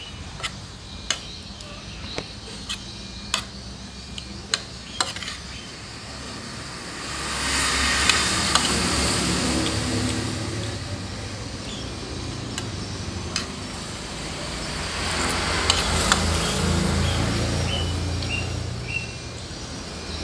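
Metal spoon clinking and scraping on a ceramic plate while eating, several sharp clinks in the first few seconds. Then passing traffic: a rush of noise with a low engine rumble that swells and fades, and swells again later.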